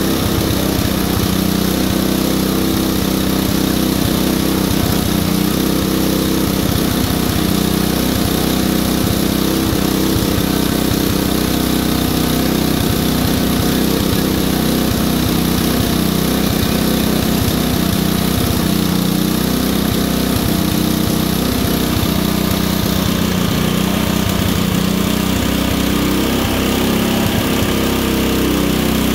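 Small engine of an open-frame portable generator fitted with a Thunderstorm generator, running steadily under the load of a fan heater.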